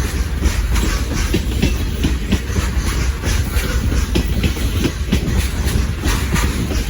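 Freight train rolling past, its wheels clacking over the rail joints above a steady low rumble.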